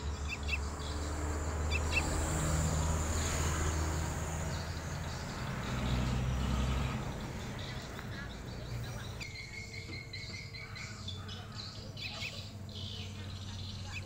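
Sooty-headed bulbuls chirping: a few short high chirps early, then a quick run of chirps about nine seconds in. A low rumble fills the first half.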